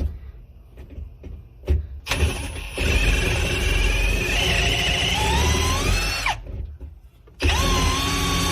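Power drill with a step bit cutting into a Chevrolet ignition switch lock cylinder. A few light clicks, then the drill runs for about four seconds, its whine rising in pitch as it cuts, stops, and starts again about a second later.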